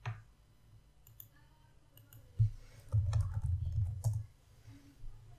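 Keys clicking on a computer keyboard as a command is typed, a few scattered clicks, with a cluster of low thuds partway through.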